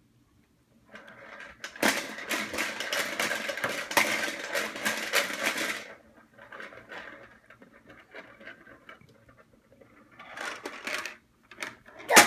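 Toy corn popper rattling: plastic balls clattering rapidly against its clear dome. The clatter is dense for about four seconds, starting a second in, then thins to short bursts near the end.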